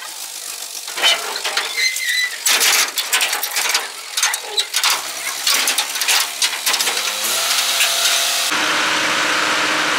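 Irregular clattering, clicking and knocking as a lifting strap is hauled and worked around a truck's steel chassis frame. About eight and a half seconds in, the sound switches abruptly to a steady engine idle.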